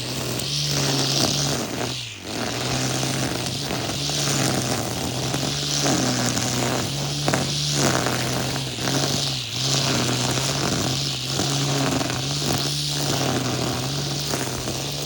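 Battery-powered grass cutter running at full speed while cutting grass. Its motor hum steps up and down in pitch every second or so as it is swept back and forth through the grass, over a steady hiss.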